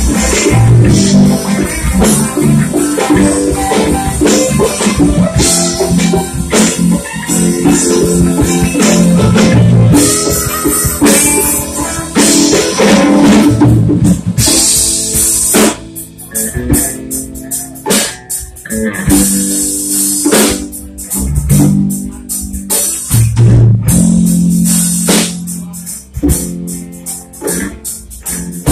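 Live rock band playing: electric guitars, bass guitar and drum kit. The playing thins out and drops a little in level about halfway through, with more spaced drum hits.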